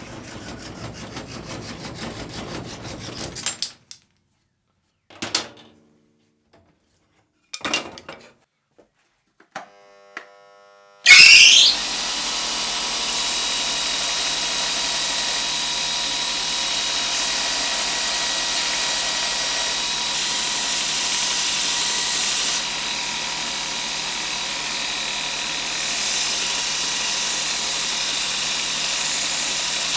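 An electric power tool spins up with a rising whine about a third of the way in, then runs steadily with a constant whine over a hiss, after a few brief sounds separated by silence.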